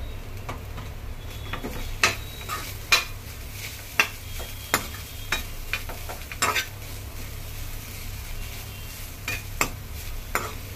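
Steel spoon stirring and scraping shredded chicken around a frying pan, clinking against the pan at irregular moments, over a faint sizzle as the filling dry-roasts on the heat.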